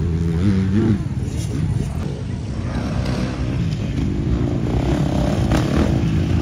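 Off-road dirt bike engine revving, its pitch rising and falling as the throttle is worked.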